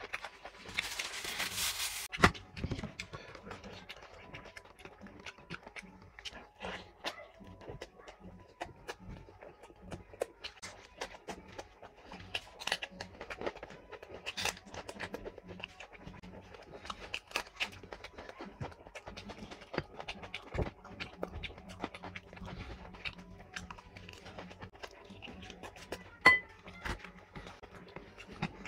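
Close-up eating by hand: bajra roti torn apart with a rough ripping sound about a second in, then a long run of wet chewing, lip smacking and squelching of curry-soaked bread in many short clicks. A sharper, louder click comes near the end.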